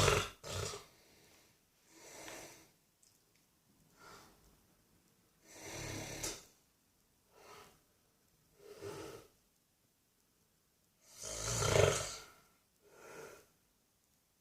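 An old man snoring in his sleep: rough, noisy snores come every one to two seconds, uneven in strength, with a longer gap before the loudest snore about twelve seconds in.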